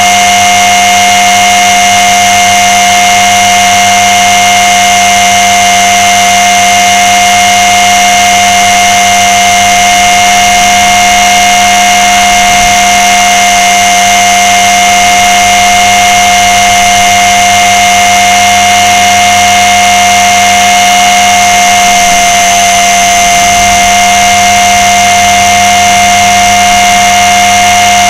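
Blade 300 X electric RC helicopter's motor, drivetrain and rotor blades, heard from a camera mounted on the airframe: a loud, steady whine made of several high tones over a mechanical hum, holding a constant pitch in flight.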